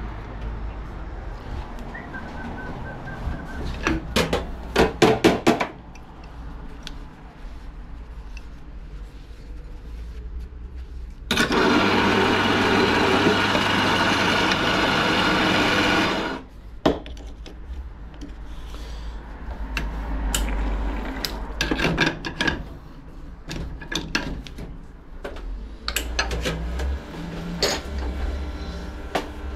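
An espresso coffee grinder runs steadily for about five seconds in the middle. Before and after it come sharp knocks and clatter of barista work, a quick cluster of them a few seconds in.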